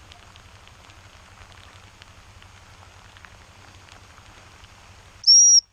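Steady rain pattering, with scattered faint drop ticks. Near the end, one short, loud, high-pitched blast, typical of a dog-training whistle used to command a hunting dog.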